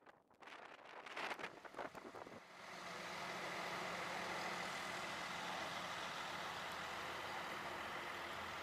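A few seconds of wind buffeting the microphone, then from about three seconds in a heavy vehicle engine running steadily.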